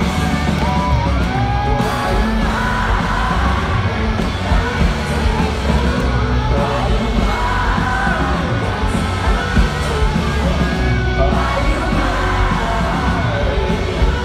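Rock band playing live through an arena sound system, with electric guitars, bass and drums, and voices yelling and singing along, heard from within the crowd.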